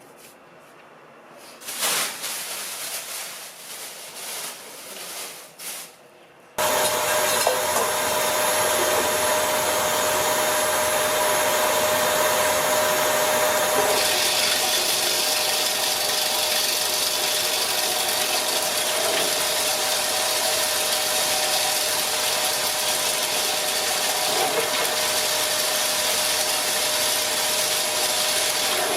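Homemade bee-bread (perga) extraction machine running, with a steady hum and an even, rough noise. It starts abruptly after a few seconds of irregular handling noises.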